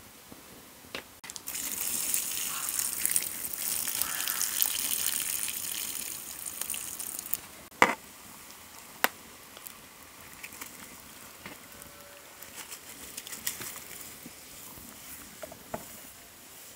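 Liquid poured from a bowl into a hot pot on a charcoal grill, hissing for about six seconds. A sharp clink of the glass pot lid comes about eight seconds in, and another a second later.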